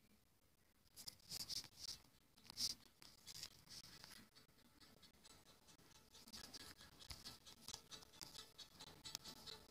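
Faint scratching and light tapping on a tablet's touchscreen while drawing, irregular at first, then a quicker run of small ticks in the second half.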